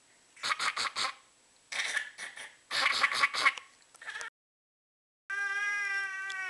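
Someone fake coughing in quick clusters of short, forced coughs. After a sudden cut, a long, steady, high-pitched wail that starts to bend down in pitch at the very end.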